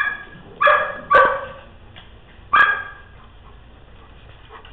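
A dog barking four times in short, sharp barks: one at the start, two in quick succession soon after, and a last one near the middle, then quiet.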